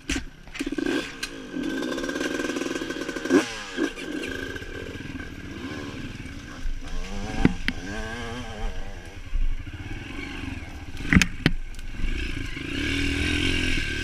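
Off-road dirt bike engine running while ridden over rough trail, the revs rising and falling repeatedly, with sharp knocks and clatter from the bike; the loudest knocks come about 11 seconds in.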